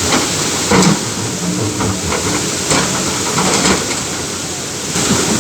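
Tata Hitachi excavator working in a river: a steady rushing noise with sharp knocks and clanks, one about a second in and a few more around three seconds in.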